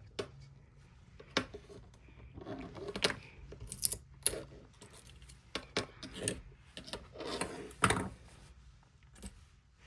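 Irregular clicks and clacks of small hard 3D-printed plastic parts being handled and knocked together, a few sharper taps among them.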